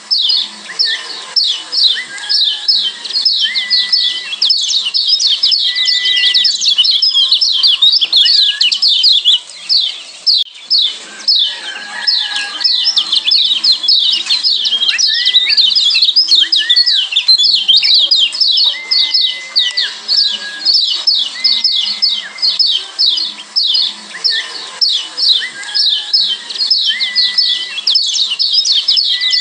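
Kecial kuning white-eye (Zosterops) giving its 'ciak' chatter: a dense, nonstop run of fast, high, descending chirps, several a second, with short level whistles lower in pitch now and then.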